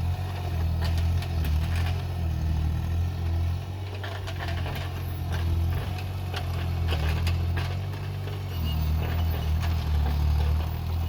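Excavator's diesel engine running under varying load while digging soil, with scattered sharp clanks and knocks throughout.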